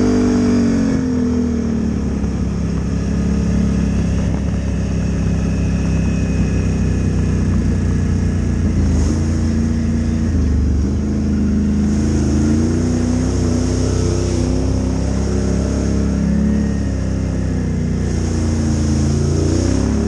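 Can-Am ATV's V-twin engine running under throttle, revs rising and falling as it is ridden, climbing sharply just at the start and again near the end.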